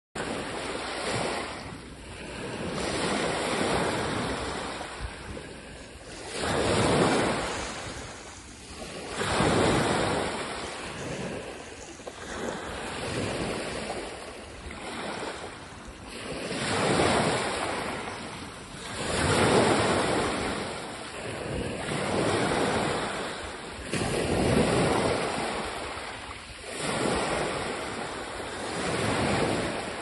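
Ocean surf: waves breaking and washing in, the sound swelling and falling away every few seconds.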